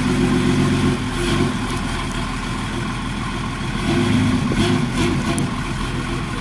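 The ZiL-131 fire truck's V8 petrol engine runs at low revs as the truck creeps forward. It swells slightly at the start and again about four seconds in.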